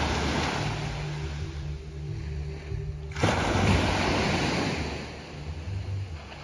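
Small waves breaking and washing up a sand beach, with an abrupt break about three seconds in; the wash is loudest just after it.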